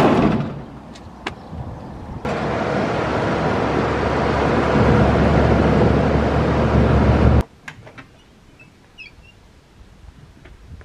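Steady road and engine noise of a van driving at motorway speed, heard from inside the cab, with a strong low hum. It cuts off suddenly after about five seconds, leaving quiet outdoor background with a few faint chirps.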